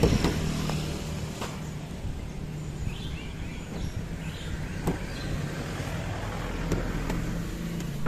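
Car engine idling with a steady low hum. A click at the start as the door handle is pulled, then a few light knocks as someone gets in.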